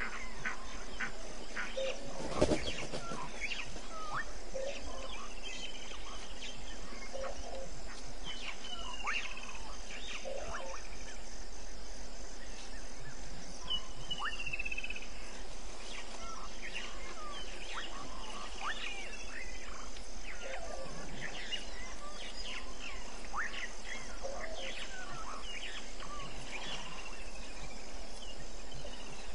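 Evening bush chorus at a waterhole: a steady high insect trill under many short chirps, clicks and brief falling calls from small animals. There is one loud thump about two seconds in.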